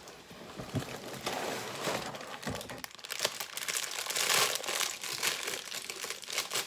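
Sealed plastic bags of LEGO pieces crinkling and rustling as they are handled. The crinkling is loudest a little past the middle.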